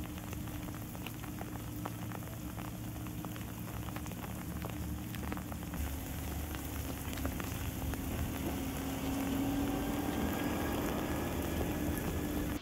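Freezing rain falling, with many small sharp ticks of drops striking hard, icy surfaces. A steady low hum runs underneath.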